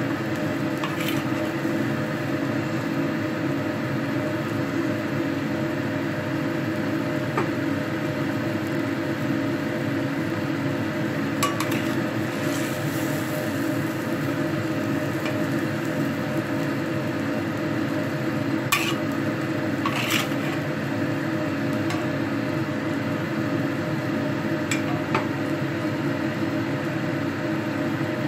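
A coconut-milk curry of young jackfruit simmering in a black wok on a gas stove, over a steady hum. A metal spatula stirs it and knocks or scrapes against the wok a few times.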